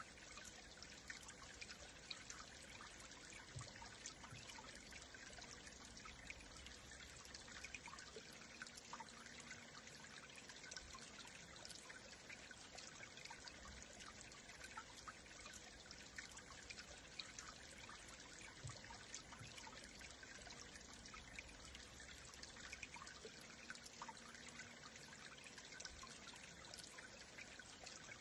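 Faint stream water flowing and trickling steadily, with many small splashing ticks.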